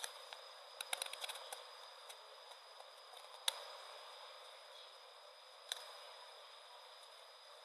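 Small sharp clicks and taps close to the microphone: a quick run of them about a second in, then single clicks at about three and a half and nearly six seconds, over a steady faint hiss with a thin high whine.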